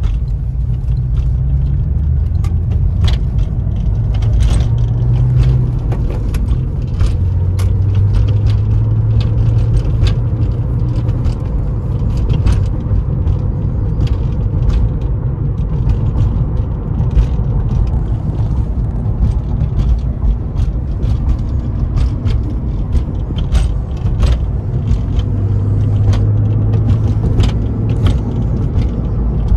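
A 2002 Porsche 911 Targa's flat-six engine running as the car accelerates and corners, heard from inside the cabin. Frequent sharp clicks and rattles sound over the low engine drone.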